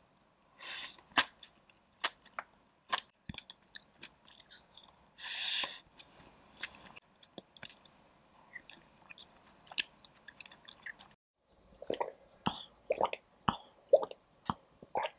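Close-miked eating sounds: chewing with crisp crunches and wet clicks. There are two short, louder noisy bursts, about a second in and at about five seconds, and the sounds break off briefly near eleven seconds.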